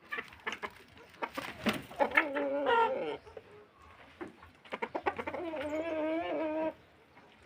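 Kienyeji chickens calling: two drawn-out, wavering calls, the first about two seconds in and the second, longer one about five seconds in, each preceded by a run of short sharp clicks.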